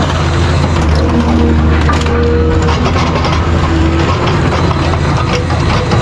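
Metal being crushed: dense crunching and cracking over a low, steady machine drone.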